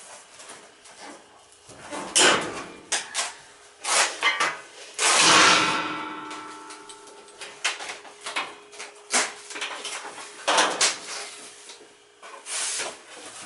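Knocks and clanks of metal being handled at a gas furnace, with one loud clang about five seconds in that rings for a couple of seconds. A faint steady hum runs underneath.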